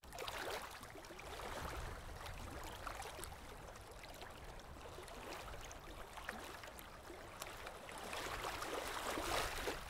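Faint water ambience: gentle washes of water that swell and fade a few times, with scattered small clicks.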